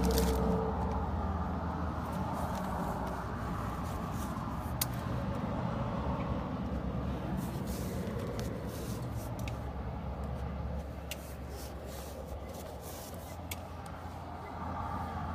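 Steady low mechanical hum, engine-like, with a few faint sharp clicks scattered through it.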